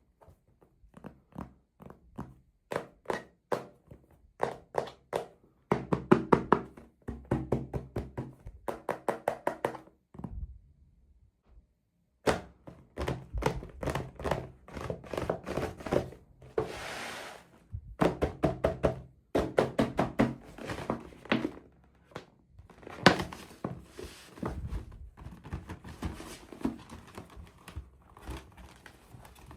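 Rapid runs of small hard taps and clicks from miniature toy pieces and their plastic packaging being handled, with a short rustle a little past halfway.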